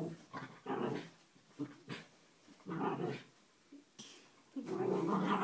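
Small dog growling in short bursts while play-fighting a chew treat, about four growls with the longest and loudest near the end.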